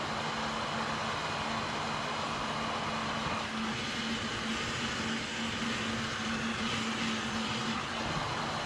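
Heat gun running steadily, a continuous whirring rush of its blower with a steady hum under it; the tone shifts a little from about three and a half to eight seconds in.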